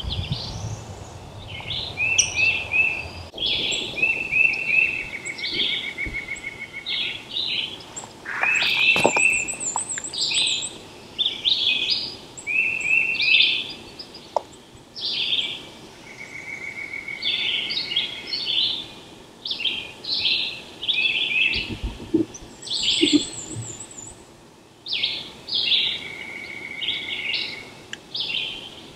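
Several wild songbirds singing over one another in spring woods, with repeated trills at one pitch and a thin, high, wavering call heard a few times.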